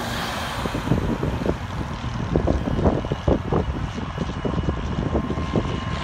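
Single-engine propeller plane's engine and propeller passing low, loudest at the start and fading as it flies on. Gusts of wind buffet the microphone.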